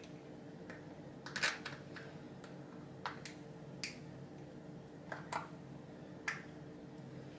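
Small, sharp metal clicks and taps at irregular intervals as a rose joint for an adjustable camber arm is handled and assembled by hand, the loudest cluster about a second and a half in. A steady low hum runs underneath.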